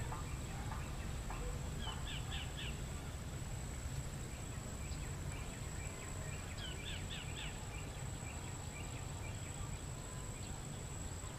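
Outdoor ambience with birds chirping in two short runs of quick notes, about two seconds in and again around seven seconds. Under it runs a steady low rumble and a thin, steady high whine.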